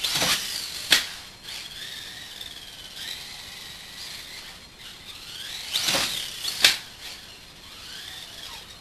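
Schumacher Cat 2000 EC RC buggy's brushless motor whining, the pitch rising and falling with the throttle, as the car runs and jumps on a concrete floor. Sharp clacks as it lands and hits the ground, the loudest about a second in and again about two-thirds of the way through.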